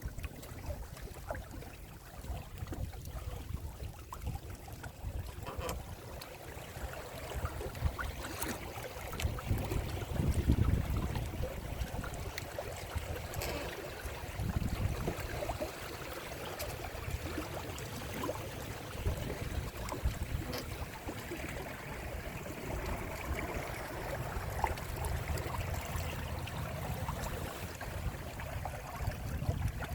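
Water rushing and splashing along the hull of a Windrider 17 trimaran under sail, with gusts of wind buffeting the microphone.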